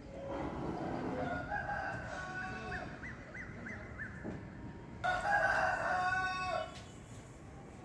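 Two drawn-out animal calls: a fainter one whose pitch wavers towards its end, then a louder, steadier one about five seconds in, held for about a second and a half.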